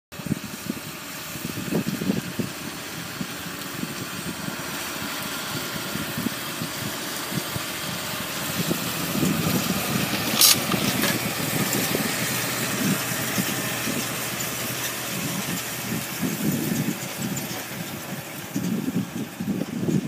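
Massey Ferguson tractor engine running under load as it pulls a reversible plough through the soil, getting louder as it passes closest about halfway through and then fading a little. Wind buffets the microphone with uneven low rumbles, and a single sharp click sounds about halfway in.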